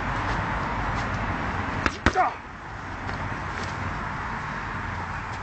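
Fist striking a hanging speed ball: a quick pair of sharp smacks about two seconds in, followed by a short falling squeak-like tone. A steady hiss lies underneath.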